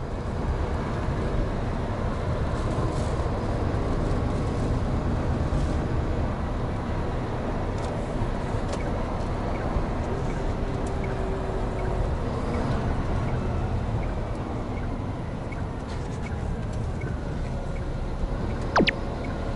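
Steady engine and tyre noise heard inside a large truck's cab as it drives on a rain-soaked road. A brief, sharp falling squeak cuts in near the end.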